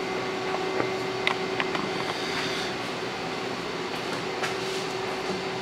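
Steady fan hum with one constant tone, with a few faint clicks and light taps.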